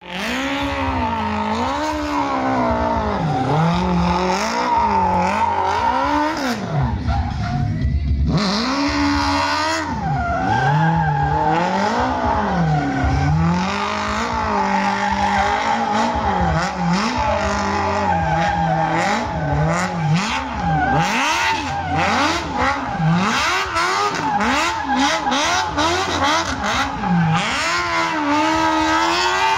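Small stunt car's engine revving up and down again and again, with tyres squealing as they spin on the tarmac.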